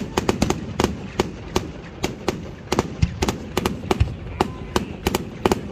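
Fireworks display: shells and rockets bursting in quick, irregular bangs and cracks, several a second, over a low rumble.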